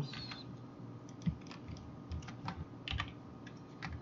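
Irregular clicks of a computer keyboard and mouse, a scattering of short taps as bones are rotated with shortcut keys and the mouse.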